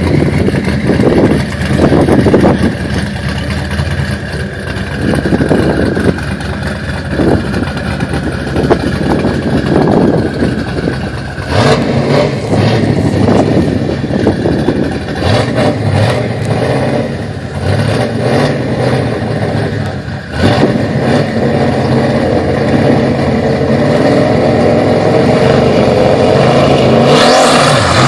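Twin-turbo C6 Corvette Z06 V8, built to over 1200 rwhp, running with short rev blips, with a run of sharp cracks in the middle. Near the end the revs climb steadily.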